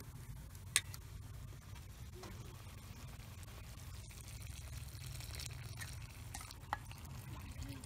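A metal ladle clinks sharply against a stainless steel bowl of soup, then the broth is poured from the bowl back into a large pot of steaming soup, with another light clink near the end, over a low steady rumble.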